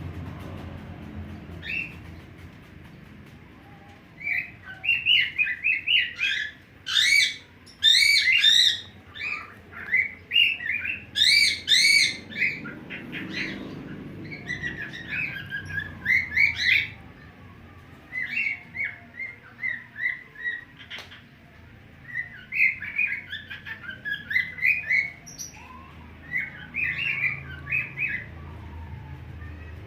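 A bird singing in phrases of rapid, high chirping notes, several bursts with short pauses between them.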